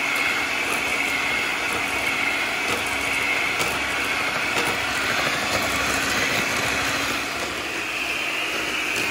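Electric hand mixer running steadily with a high whine, its beaters churning butter, sugar and egg yolks in a stainless steel bowl.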